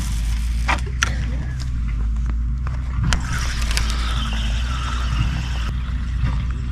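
Steady low rumble of wind on the microphone, with a few sharp clicks and knocks from a fishing rod and reel being handled.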